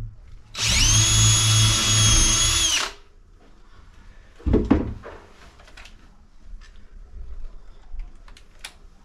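A power drill runs at one steady speed for about two seconds, then stops. About a second and a half later comes a single knock, followed by a few light clicks and taps.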